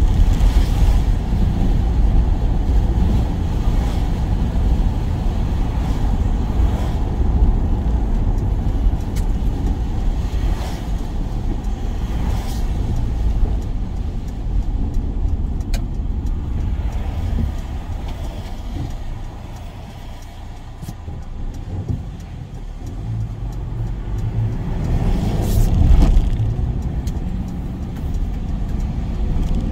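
Work van being driven, steady engine and road noise heard from inside the cab. It eases off about twenty seconds in, then builds again.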